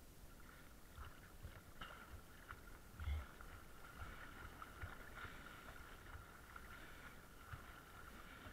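Faint, muffled sloshing of sea water around a camera at the water's surface, with small scattered clicks, a faint steady high tone and a soft knock about three seconds in.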